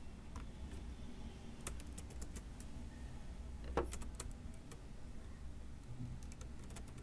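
Faint computer keyboard typing: a few short groups of keystrokes, separated by pauses, over a steady low hum.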